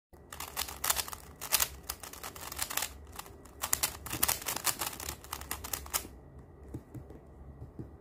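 Stickerless 3x3 speedcube being turned fast by hand: rapid plastic clicking of the layers, stopping about six seconds in.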